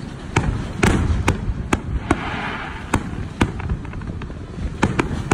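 Aerial firework shells bursting in a display: a run of sharp bangs, several close together at first, then more spaced out, over a constant low rumble of echoing reports.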